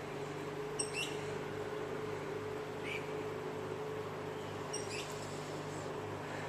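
Small finch giving short, high chirps three times, about two seconds apart, over a steady low hum.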